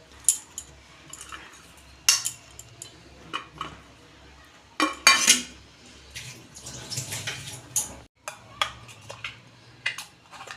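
A spoon clinking and knocking against a bowl in a series of separate sharp strikes, with some scraping, as spices are spooned in. The loudest knocks come about five seconds in.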